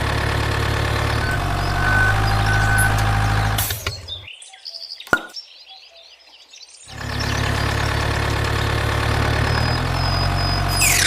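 A toy RC vehicle's motor or engine-sound unit running steadily, stopping about four seconds in and starting again about three seconds later. Birds chirp faintly in the quiet gap.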